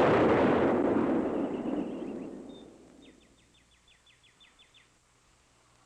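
The rumbling tail of a loud explosion sound effect, fading away over about two and a half seconds. It is followed by a faint, quick run of about ten short high chirps.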